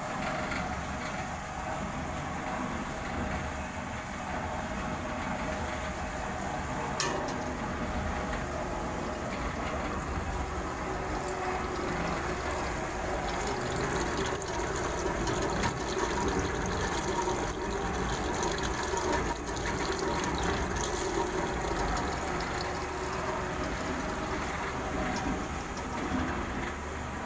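Solvent cement plant machinery running steadily, with liquid flowing, and one sharp click about seven seconds in.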